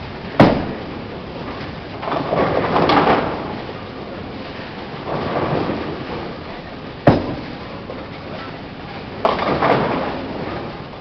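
Tenpin bowling ball thudding onto the lane just after release, then crashing into the pins about two seconds later. More knocks and pin crashes from the alley follow, with a sharp knock about seven seconds in and another crash near the end.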